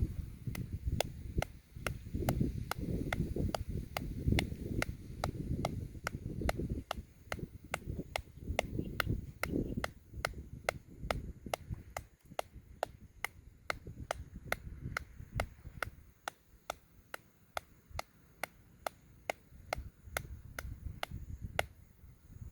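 Steady rhythmic hand clapping, about two to three sharp claps a second, with wind rumbling on the microphone that eases off in the last few seconds.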